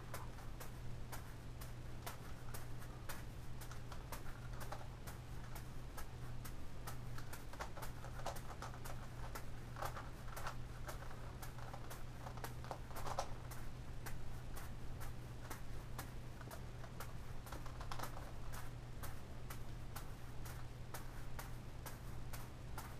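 Quick, irregular clicking of a Gigaminx puzzle's plastic layers being turned, mixed with juggling balls dropping into the hands, several clicks a second. A steady low hum runs underneath.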